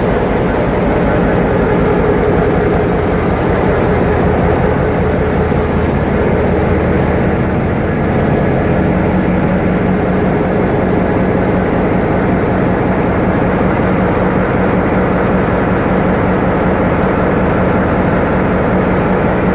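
General Motors (EMD) 567C twelve-cylinder two-stroke locomotive diesel engine running steadily, a dense, even engine drone with no break.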